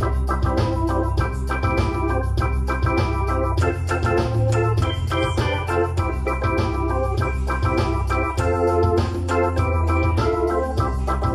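Electronic keyboard played with an organ voice: held gospel chords changing every second or so over a deep, steady bass.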